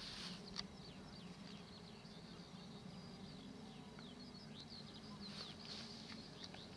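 Small birds chirping and twittering in short, high calls, faint, over a low steady background hum.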